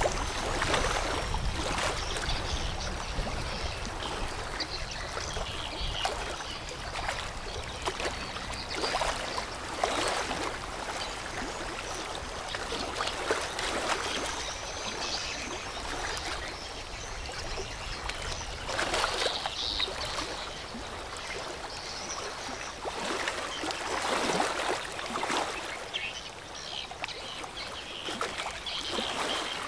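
River water washing and splashing in uneven surges that swell and fade every second or two, over a steady low rumble.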